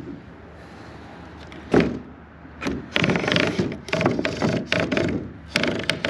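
An old barn door and its mechanism being worked open: a knock about two seconds in, then a loud, long rattling and grinding scrape of wood and metal with a squeal in it. Called the noisiest thing.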